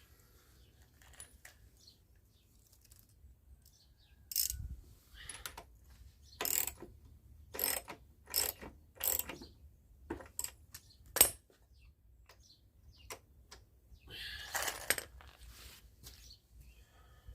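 Metal tools and parts clicking and clinking during work on a walk-behind lawnmower: a string of separate sharp clicks about a second apart, then a short scraping rustle.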